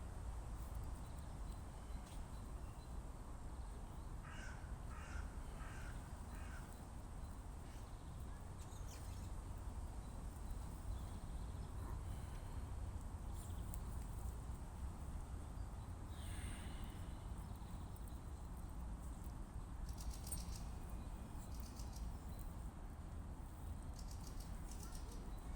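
Crow cawing: a run of four short harsh caws about four seconds in, and further calls around sixteen seconds, over a steady low background rumble.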